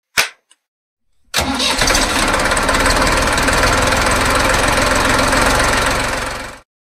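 A sharp click, then about a second later an engine starts and runs steadily with a rapid low pulsing for about five seconds before cutting off abruptly.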